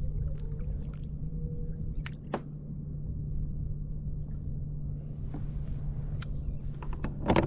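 Water moving around a fishing kayak, with a steady low hum and a few light knocks and splashes. The loudest knock comes near the end.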